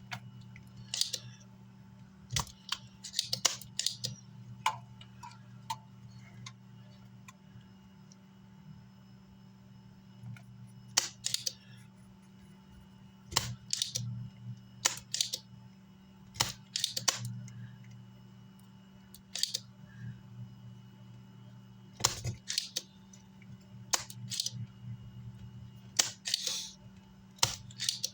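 Irregular sharp clicks and taps of small hand tools working on an amplifier circuit board, over a steady low hum.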